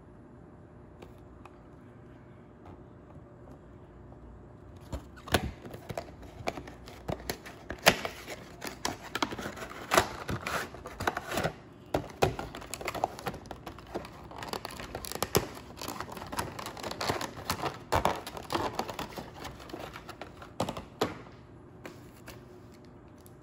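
Handling diecast model packaging: clicks and knocks of a plastic tray and cardboard box with crinkling and tearing of plastic wrap, starting about five seconds in and dying down near the end.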